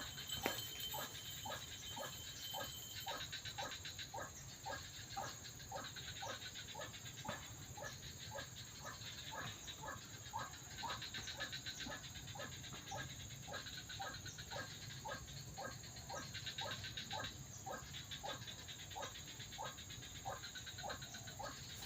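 White-breasted waterhen calls played from an MP3 lure box: a steady, rapid string of short croaking notes, about two a second. There is a sharp click about half a second in.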